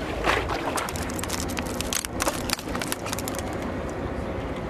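Steady low rumble of wind and water around a boat at sea. A run of sharp clicks and crackles comes in the first three seconds.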